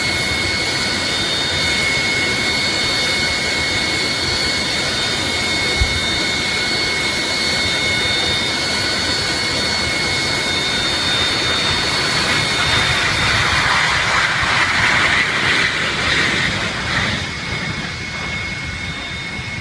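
Jet airliner engines running with a steady high-pitched whine over a rushing roar. About twelve seconds in the rushing noise grows louder, then fades back near the end.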